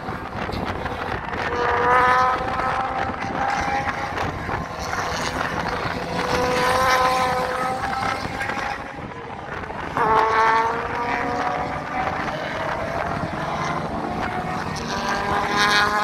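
Race cars passing one after another at speed, four engine notes in turn, each bending in pitch as the car goes by.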